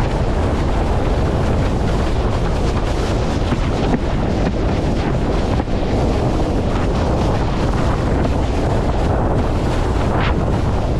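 Strong wind buffeting the camera microphone during fast windsurfing, with water rushing and hissing past the board as it skims over the chop.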